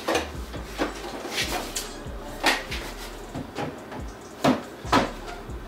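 A series of knocks and clunks as a flat black drawer unit is set down on a cabinet top and shifted into place, with two sharper knocks near the end.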